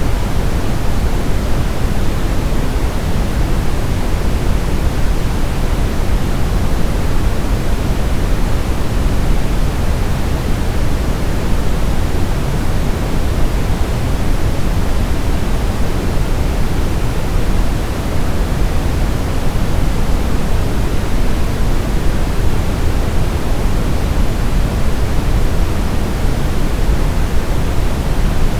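Steady, loud pink-style noise used as a baby sleep aid: an even rushing hiss, heavier in the low end, with no changes or events.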